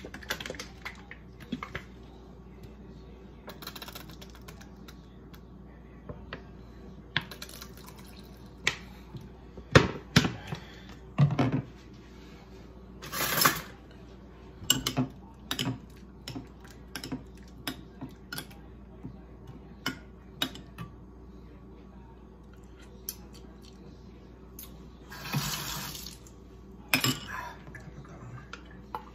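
Kitchen handling sounds while a dipping sauce is mixed: scattered clinks and knocks of a metal spoon against a glass bowl and of a plastic squeeze bottle on the counter, with two brief rushing, hissing noises of about a second each.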